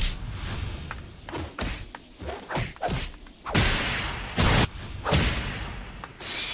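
Cartoon fight sound effects of punches and kicks landing, mixed with quick whooshing swings. A sharp hit comes at the start, then a run of fast swishes, then three loud heavy blows in the second half and a final whoosh near the end.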